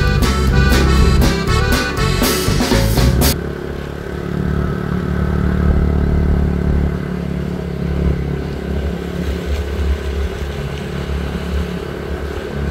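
Accordion-led background music that cuts off sharply a few seconds in. A steady motor-vehicle engine follows, running at an even speed while travelling, with a low hum underneath.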